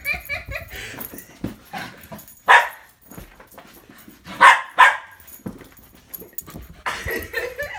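Bernedoodle barking in excited play: one loud bark, then two more in quick succession about two seconds later.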